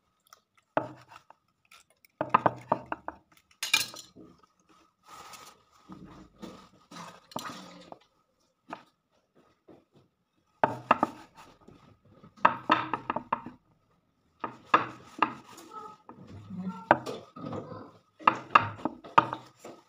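Kitchen knife cutting the crusts off slices of white bread, the blade knocking on a wooden chopping board. It comes in short runs of quick strokes with pauses between.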